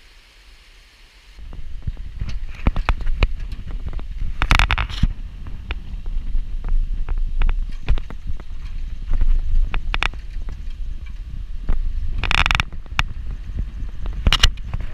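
A faint stream trickling, then, about a second and a half in, wind buffeting the microphone and road rumble from riding in the open bed of a moving small pickup truck, with many knocks and rattles from the bed. Two louder rushes of wind hiss come about four and a half and twelve and a half seconds in.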